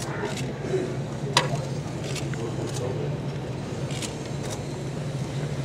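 Exhibition-hall background: a steady low hum under faint distant crowd chatter, with a few sharp clicks, the loudest about a second and a half in.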